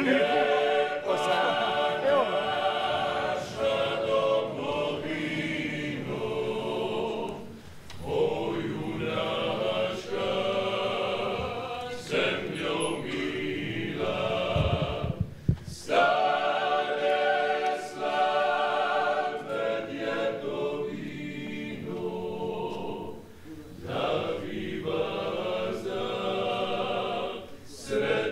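Male vocal group singing a slow song in close harmony, several voices together, in long phrases with short breaks between lines.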